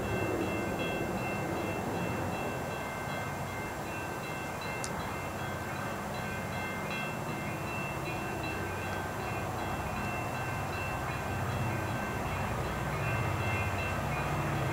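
Approaching freight train led by diesel locomotives: a distant low rumble that grows louder near the end, with faint steady high tones over it.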